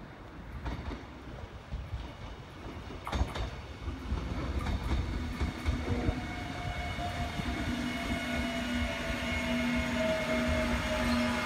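Seoul Metro Line 1 VVVF electric train pulling into the station. Wheels rumble and click over the rails as it approaches, then from about four seconds in the inverter-driven traction motors whine in several tones, one of them slowly falling in pitch as the train slows.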